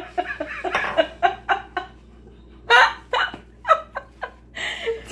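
Women laughing hard in short, breathless, hiccup-like bursts, with a brief lull about two seconds in.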